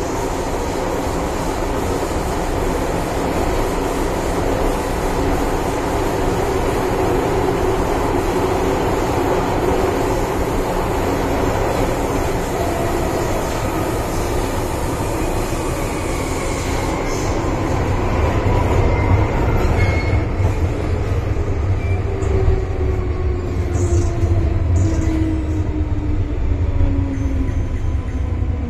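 MTR M-Train electric multiple unit running in a tunnel, with steady wheel-and-rail noise. Over the second half, the traction motors' whine (the 'ghost howl' this car, B486, is known for) falls steadily in pitch as the train brakes into a station.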